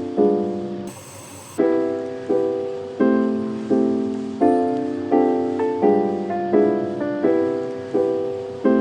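Background music: soft piano or electric-piano chords struck in a steady rhythm, each one fading, with a brief break about a second in.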